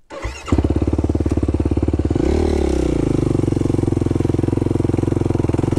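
Yamaha YFZ sport quad's engine running with a rapid pulsing beat, coming in suddenly about half a second in. It revs up and back down once a couple of seconds later, then runs steadily.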